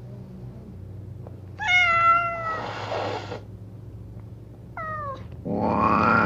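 Two angry caged cats yowling: a low growl underneath, a drawn-out yowl about a second and a half in that gives way to a hiss, a short falling cry near five seconds, then a long yowl rising and falling near the end.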